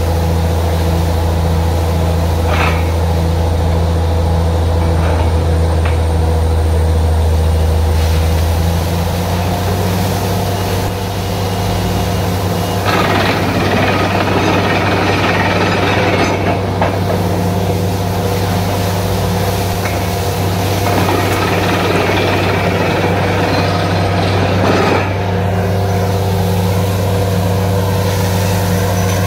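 Truck-mounted borewell drilling rig running steadily with its engine note shifting about eight seconds in, while air and water blast out of the bore in a hissing rush that swells twice, for a few seconds each time, as the bore gives up plenty of water.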